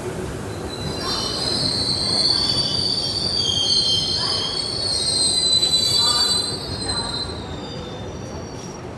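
Indian Railways passenger coaches rolling slowly past on an arriving train, their wheels squealing as the train brakes. Several high squealing tones start about a second in and fade out around seven seconds in, over the rumble of the wheels on the rails.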